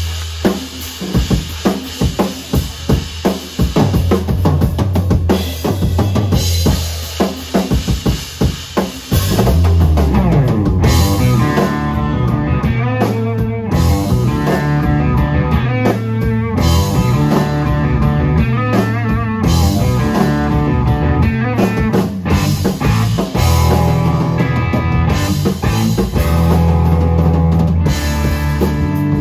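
Live instrumental rock trio of electric guitar, electric bass and drum kit playing. The drums are most prominent at first, and the full band grows louder about nine seconds in.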